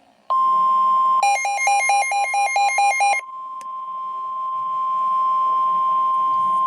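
NOAA Weather Radio warning alarm tone: a loud, steady single tone of about 1050 Hz that starts a moment in and holds, the alert that a warning is about to be broadcast. For about two seconds near the start, rapid pulsing beeps, roughly four or five a second, sound over it.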